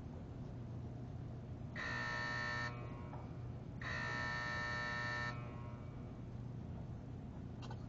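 Electric warning buzzer sounding twice, once for about a second and once for about a second and a half, over a low steady electrical hum. It is the warning ahead of the arc flash test being fired.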